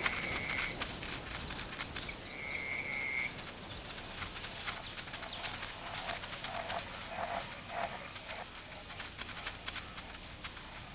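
Cheetahs struggling with a Grant's gazelle they have pulled down: dense crackling and rustling with short animal calls. Two thin, steady high notes come in the first three seconds, then a run of about four short lower calls a little past the middle.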